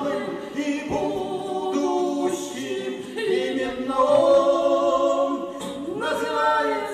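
A woman singing a song from a popular Soviet film into a microphone, in long held notes that step from pitch to pitch.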